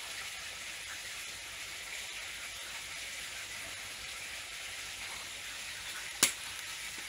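A steady hiss with no clear source, and one sharp click about six seconds in.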